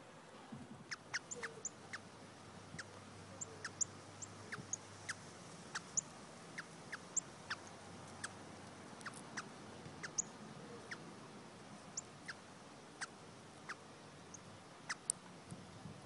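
Northern cardinals giving short, sharp, high chip calls, about two a second at irregular intervals.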